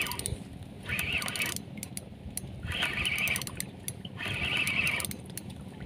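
Spinning reel being cranked in spurts while a hooked fish is fought, a whirring rasp three times about every one and a half seconds.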